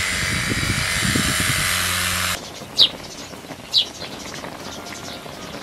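Electric garden sprayer running: its pump motor hums steadily while the nozzle hisses out a fine mist, cutting off abruptly a little over two seconds in. Then a quieter background with two short, falling bird chirps about a second apart.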